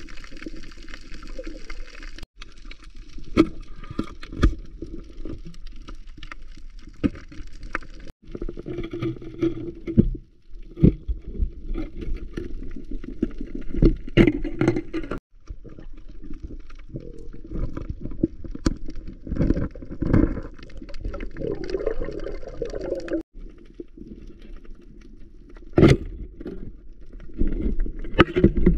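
Underwater sound picked up by a camera below the surface: muffled rushing and gurgling water, with sharp knocks and clicks scattered throughout, the loudest near the end.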